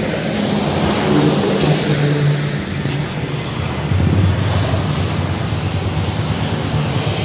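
Street traffic: a steady roar of passing vehicles, with engine hum swelling about a second in and again around four seconds in.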